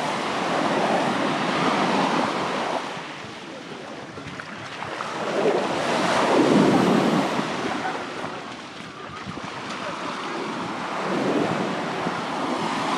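Sea waves breaking and washing up on a sandy beach, surging three times and loudest about halfway through, with some wind on the microphone.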